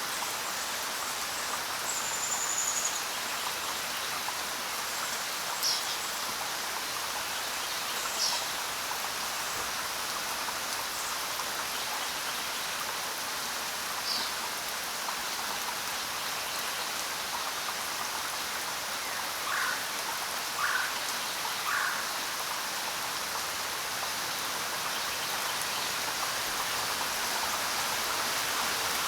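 Steady rain falling on the ground, an even hiss of raindrops. A few brief bird calls sound over it: a high whistle and some quick downward chirps, then three short lower calls in a row about two-thirds of the way through.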